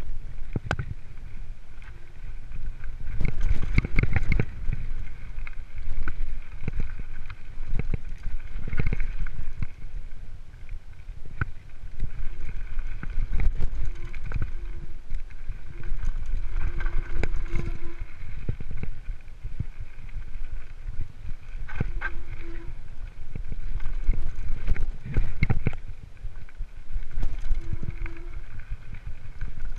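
Mountain bike descending a rough, rocky dirt trail: the bike rattles and knocks over stones, with a steady low rumble of wind on the camera's microphone. Short squeaks come several times in the second half.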